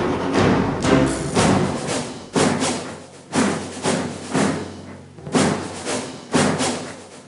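Background music with heavy drum hits about once a second, each fading before the next.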